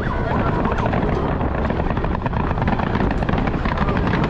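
Helicopter flying over the bay, its rotor beating with a steady, continuous chop.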